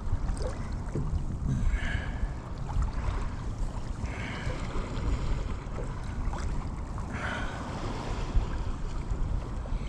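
Wind buffeting the microphone and water moving around a sea kayak, with three brief higher sounds spaced a couple of seconds apart.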